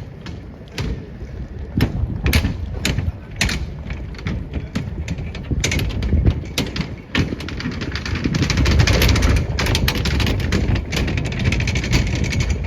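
City street noise: irregular clicks and knocks over a low traffic rumble that swells about eight seconds in, as a vehicle passes.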